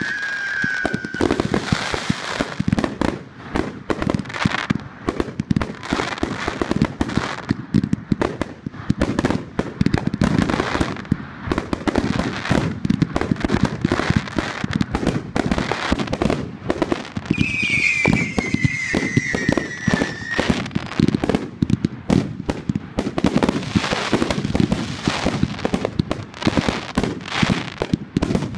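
Aerial fireworks finale barrage: a rapid, unbroken run of shots and bursting reports with crackle. About 17 seconds in, a falling whistle-like tone lasts about three seconds over the barrage.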